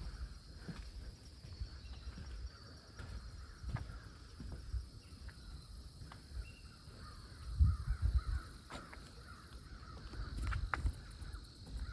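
Birds calling repeatedly with harsh, crow-like caws over quiet lakeside ambience, with a few low rumbling bumps on the microphone about eight seconds in.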